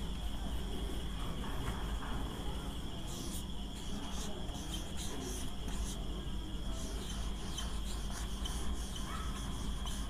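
Marker pen writing on a whiteboard: short scratchy strokes, thickening from about three seconds in, over a steady high-pitched tone and a low hum.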